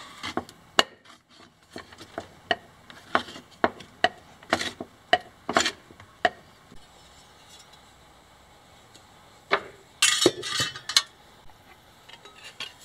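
Thin sheet metal being bent and worked in a steel bench vise: a run of sharp metallic taps, about one or two a second, for the first six seconds. After a short pause comes a louder clatter of metal about ten seconds in.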